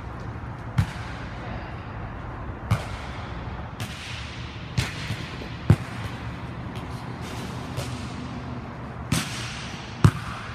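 Volleyballs being struck: sharp smacks of the ball off a hitter's hand and a player's forearms, with the ball bouncing on the court floor, about seven hits spaced irregularly, each ringing on in a reverberant hall. A steady low hum runs underneath.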